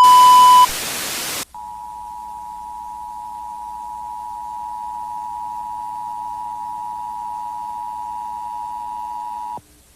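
A loud burst of static with a short high beep at its start, then the Emergency Broadcast System's two-tone attention signal. The signal holds steadily for about eight seconds and cuts off sharply near the end.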